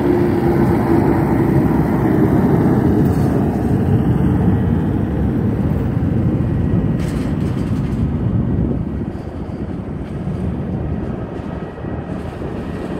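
A Boeing 757-2B7's two Rolls-Royce RB211-535E4 turbofans at takeoff thrust: a loud, steady rumble as the airliner rolls, lifts off and climbs away. It drops somewhat in level about eight seconds in as the jet gains distance.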